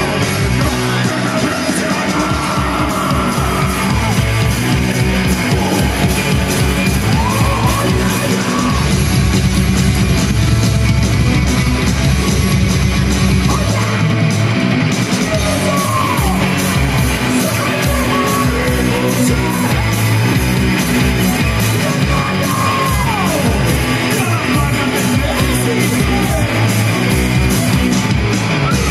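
Live heavy rock band playing loud: electric guitars and a driving drum beat, with shouted vocals over the top.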